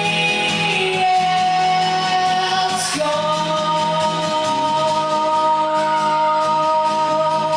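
A man singing and playing an acoustic guitar in a live solo set. About three seconds in he settles on one long held note.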